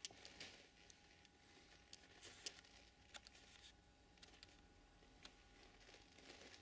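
Near silence: room tone with a faint steady hum and a few scattered soft clicks and ticks.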